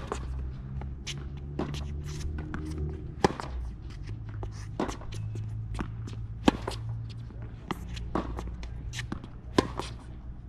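Tennis ball struck by a racket in a baseline rally on a hard court: sharp hits about every three seconds, with quieter ball bounces and footsteps on the court between them, over a low steady hum.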